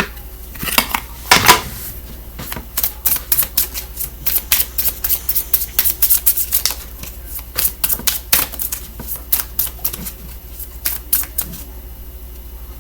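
A deck of cards being shuffled by hand: a quick, irregular run of crisp clicks and snaps, with two louder knocks about a second in.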